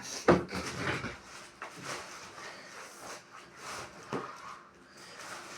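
Books being handled while the next one is fetched: a sharp thump about a third of a second in, then lighter knocks and rustles, with another small knock a little after the four-second mark.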